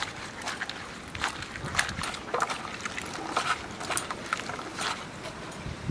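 Cut taro stolons being washed by hand in water in a steel bowl: irregular swishing and splashing as the hands stir and rub them.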